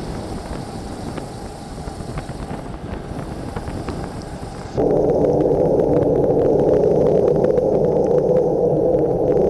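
Wind and wet-road noise rushing over an action camera's microphone as a bicycle rides in the rain, with many small clicks. About halfway through the noise abruptly gets much louder and fuller.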